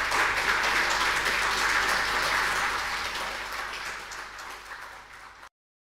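Audience applauding, a dense patter of many hands clapping that fades over the last couple of seconds and then cuts off suddenly.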